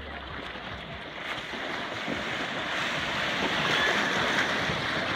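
Breaking surf: small waves' whitewater rushing close by, growing louder about halfway through as a wave breaks past.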